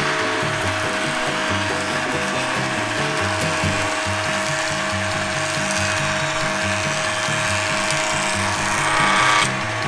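Grizzly G0454Z 20-inch, 5 HP planer with a spiral carbide cutterhead running and planing a rough-sawn chestnut board, with a steady whine under the cutting noise. The cutting noise swells near the end and then cuts off suddenly. Light country background music with a bouncing bass line plays over it.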